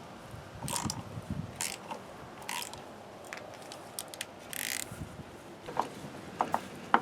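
Ratchet clicking in irregular short runs and single sharp clicks as it turns a Lisle 65000 thread-repair tap, cutting new, larger spark plug threads into the aluminum cylinder head. The clicks turn sharper near the end.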